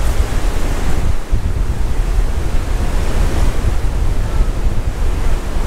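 Surf breaking and washing in among the concrete pilings of a pier, with strong wind buffeting the microphone in a steady low rumble.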